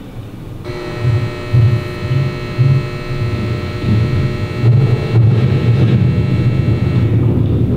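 Loud electronic drone: a low, irregularly pulsing hum, joined about a second in by a cluster of steady high tones that fade near the end.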